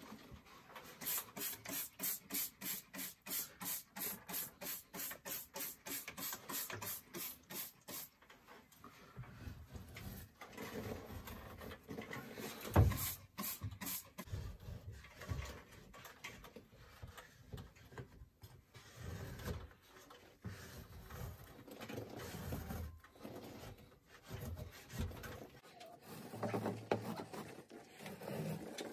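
A trigger spray bottle misting water onto a popcorn-textured ceiling in a quick, even run of hissing squirts, about three a second, with a sharp knock and a few more squirts partway through. Later comes the irregular scrape of a plastic spatula shaving off the wetted popcorn texture.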